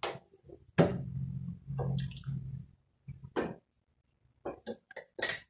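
A spoon stirring thick carapulcra (dried-potato stew) in a steel pot, with wet squelching and scraping. About a second in there is a sharp knock, followed by a low hum lasting about two seconds. Short spoon scrapes and clinks come near the end.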